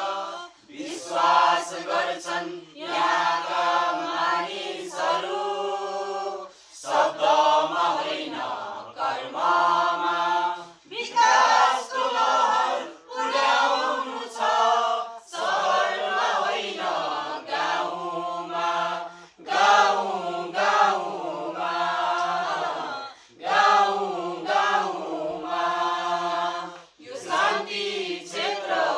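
A mixed group of men and women singing a Nepali song together without instruments, in phrases a few seconds long with brief breaks between them.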